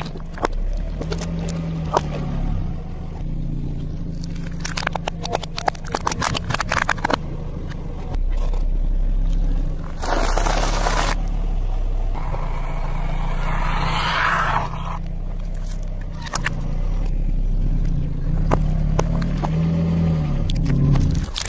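A car's tyre rolling slowly over objects and crushing them, with crackling and crunching over the low hum of the car's engine. A run of crackles comes a few seconds in, and louder bursts of crushing noise come around the middle.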